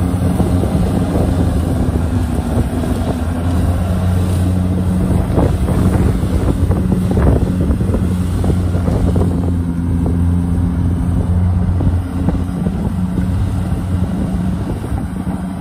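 Kubota DC-70 Plus combine harvester's diesel engine running steadily under load while it cuts rice, a constant low hum with the clatter of the cutting and threshing gear.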